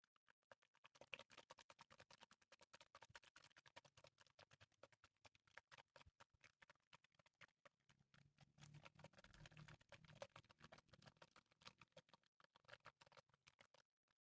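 Faint, fast wet clicking and pattering of water being worked close to the microphone, with a soft low rumble about two-thirds of the way through.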